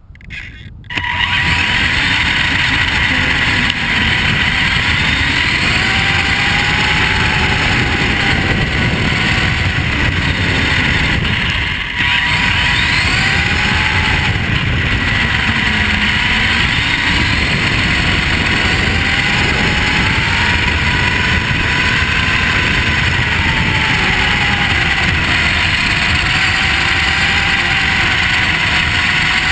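Vaterra Twin Hammers RC truck driving over gravel, heard from a camera mounted on it. A steady rushing noise from the tyres and drivetrain comes in abruptly about a second in, and the electric motor's whine rises and falls as the throttle changes.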